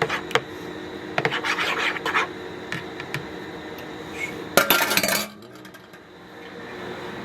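A utensil scraping and clinking against a bowl while puppy food is stirred and broken down: a run of short clicks and scrapes, then a louder scrape about four and a half seconds in.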